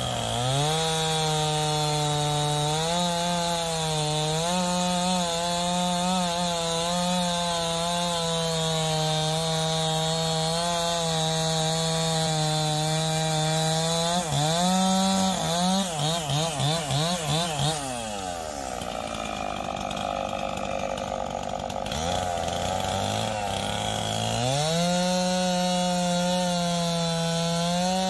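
Stihl MS291 two-stroke chainsaw cutting through a log at steady high revs. About halfway, the revs rise and fall rapidly several times, then the saw drops to low revs for a few seconds before opening up again to cut near the end.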